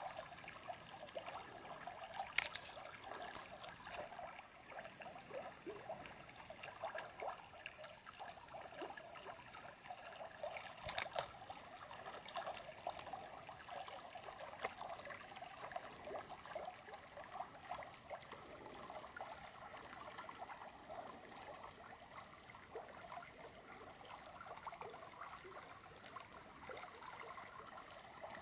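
Shallow spring creek water trickling and babbling over its bed, a faint steady sound, with a couple of sharp clicks about two seconds in and again about eleven seconds in.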